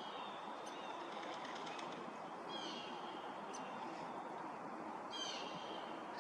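A songbird singing the same short phrase of high notes twice, about two and a half seconds apart, over a steady background hiss.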